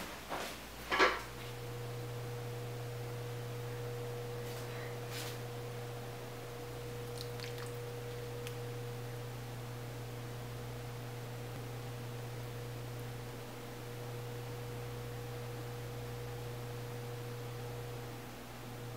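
A few light clicks, then a steady electrical hum with a faint thin tone above it.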